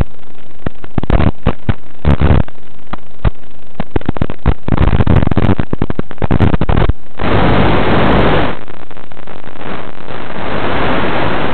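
Crackling static and hiss from an analog 5.8 GHz FPV video link's audio: scattered sharp crackles at first, thickening into dense crackling about halfway through and then a steady hiss. The static grows as the radio signal weakens and the picture breaks up.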